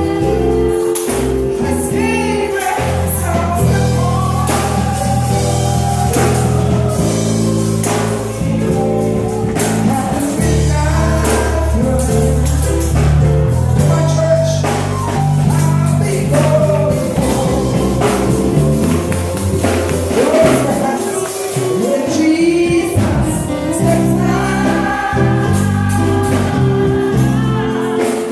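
Congregational gospel praise singing, many voices together with a woman leading on microphone, over sustained bass notes. Tambourines jingle and are struck through it.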